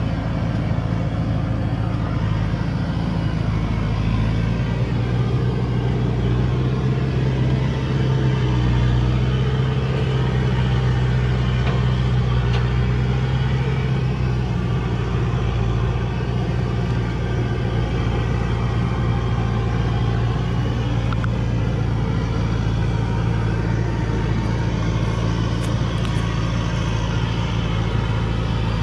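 Heavily loaded Thaco Forland logging truck's diesel engine labouring up a steep dirt slope, a steady low drone that pulls a little harder for several seconds in the middle.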